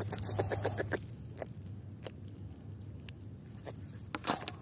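Faint, irregular crunching and clicking of footsteps on gritty, debris-strewn shore sand, over a low steady hum, with a few sharper clicks near the end.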